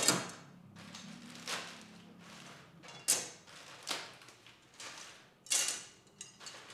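Plastic-wrapped curtain rails and parts being unpacked and handled on a car's bonnet: a few short rustles and knocks, with a longer rustle about five and a half seconds in.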